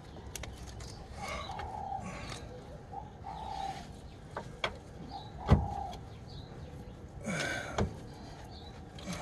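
Metal knocks and clicks as a new front stabilizer bar bush and its mounting bracket are handled and worked onto the bar, with some scraping between them; the heaviest knock comes a little past halfway.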